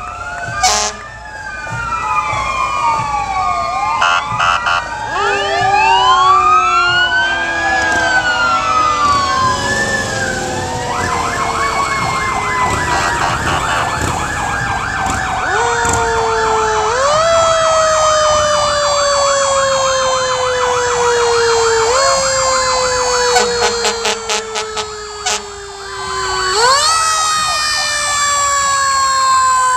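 Several emergency-vehicle sirens sounding together as fire engines pass. At first, wailing sirens rise and fall across one another; from about twelve seconds in, one siren rises sharply and falls away slowly, over and over.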